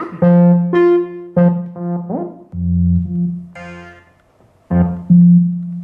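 Casio XW-G1 synthesizer playing a patch: a string of short pitched notes over a repeated low note, with one note sliding up in pitch about two seconds in.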